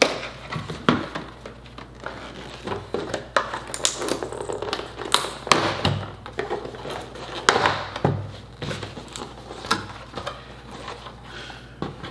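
Cardboard packaging handled by hand: irregular scrapes, taps and rustles as a box slides out of its paper sleeve and its flaps are folded open.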